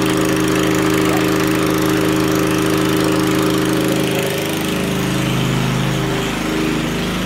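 Motor of a water tanker truck running steadily, a continuous engine drone. About four seconds in, a second, lower, wavering tone joins it for a couple of seconds.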